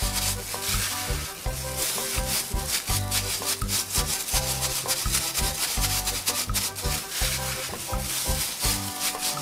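Plastic bag crinkling and rubbing as a bag-covered hand presses minced meat filling into a hollowed cabbage head, over background music with a steady low beat.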